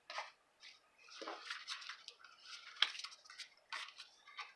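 Sheets of paper and cardstock being handled on a tabletop: irregular short rustles and sliding sounds, with a few light taps.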